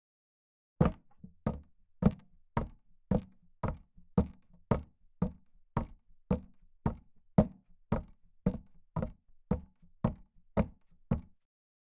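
A run of about twenty sharp, evenly spaced knocks, roughly two a second, each followed by a faint after-tap, starting just under a second in and stopping shortly before the end, with dead digital silence around them.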